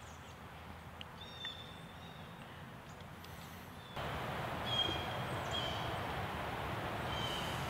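Outdoor field ambience: a steady low hiss with a few short, high bird chirps. The hiss gets louder about four seconds in.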